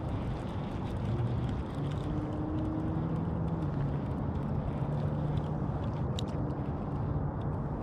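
Steady low rumble of a vehicle engine, its hum shifting slightly in pitch, with a single sharp click about six seconds in.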